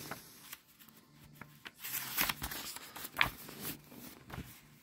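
Paper pages of a hardcover picture book being turned and handled: a run of crisp rustles and light taps, the loudest about three seconds in.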